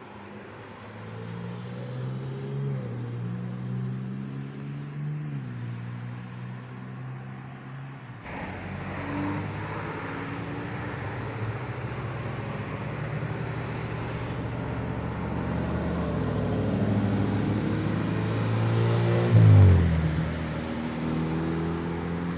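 Car engines accelerating past, their pitch stepping up and down as they change gears. About eight seconds in the sound changes abruptly, then another vehicle revs up and passes, loudest a few seconds before the end.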